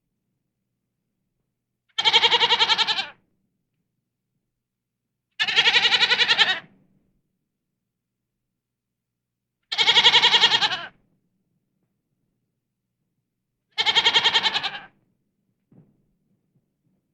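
An adult goat bleating: four long, quavering bleats several seconds apart, with a faint short sound near the end.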